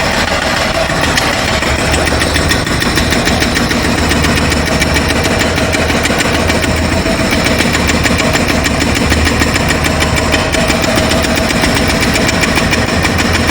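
Jackhammer breaking up the ground in a fast, unbroken run of hammer strokes.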